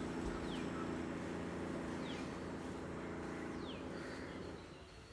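An engine running steadily at an even pitch, fading away about four and a half seconds in, with a few short falling bird chirps over it.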